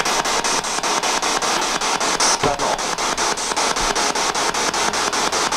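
Spirit box sweeping through radio stations: a steady hiss of static chopped by fast, even clicks, about five or six a second. A brief snatch of broadcast sound comes through, which the investigators read as the word "skandal".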